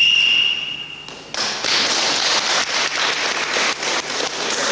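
A single whistle blast of about a second, a steady high note that slides up slightly as it starts. It is followed, after a brief lull, by a dense rapid patter of taps.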